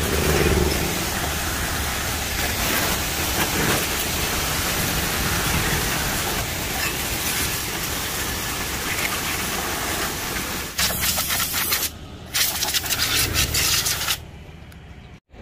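Pressure-washer jet spraying water onto a motorcycle and the wet concrete under it, a loud, steady hiss. It turns choppy near the end, then stops.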